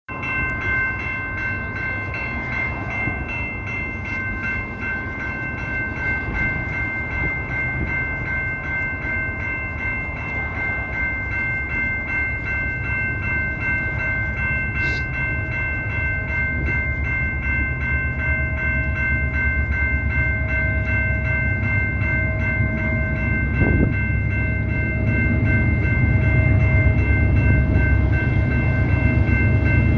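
CP Rail train running, its low rumble growing steadily louder, with steady high-pitched tones held throughout.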